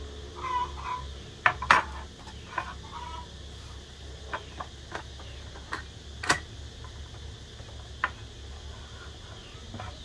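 Hard plastic clicks and knocks as a Ryobi 40V lithium battery is pushed onto its adapter mount on a steel bicycle rear rack and the rack is handled. The loudest knocks come about a second and a half in and again a little after six seconds.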